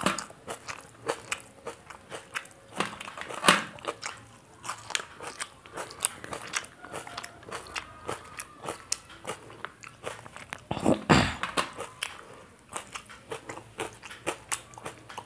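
A person eating by hand: close chewing and crunching with many quick mouth clicks. There is a louder, noisier stretch about eleven seconds in.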